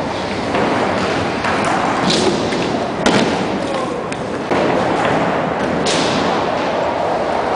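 Inline skate wheels rolling on skatepark ramps in a continuous rumble. There are several sharp knocks and thuds from the skates striking the ramps.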